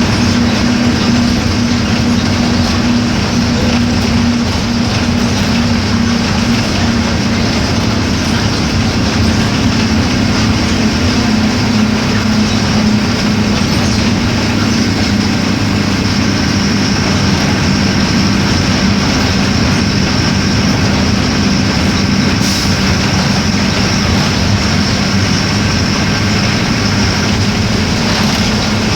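Mercedes-Benz OF-1418 bus's six-cylinder diesel engine running steadily at an even speed, with a deep, constant drone and rattling vehicle noise.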